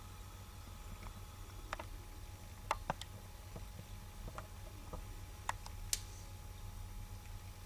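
Quiet room tone: a steady low hum with a handful of faint, sharp clicks. Two close pairs of clicks, a little under 3 seconds in and near 6 seconds, are the loudest.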